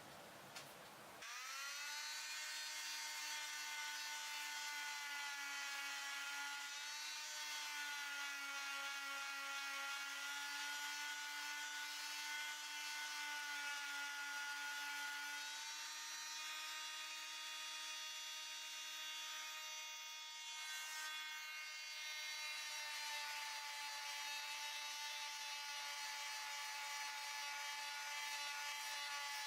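A small high-speed electric power tool starts about a second in and runs on steadily as a high whine, its pitch dipping and recovering slightly as it works the wood.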